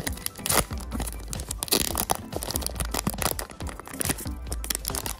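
Foil trading-card booster pack being torn open by hand, the wrapper ripping and crinkling in a quick run of sharp crackles, loudest about half a second in and again just before two seconds in.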